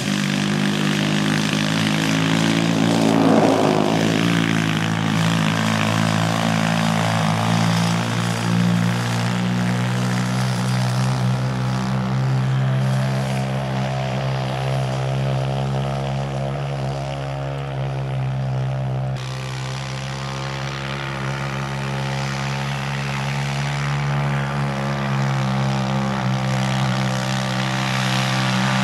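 Homemade track sled's small engine running steadily as the sled is driven around a snowy test track. It swells briefly as the sled passes about three seconds in, and the sound shifts abruptly about two-thirds through.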